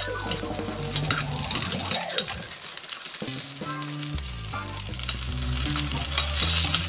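Coconut-rice batter sizzling in a kanom krok pan, with metal spoons scraping and clicking against the pan as the cooked cakes are scooped out, over background music.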